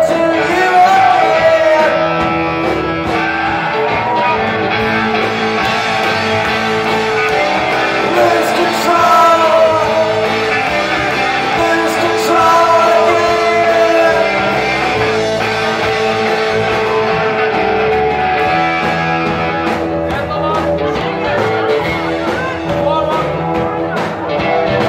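Live rock band playing: a male singer over electric guitar and drums, heard loud from within the crowd.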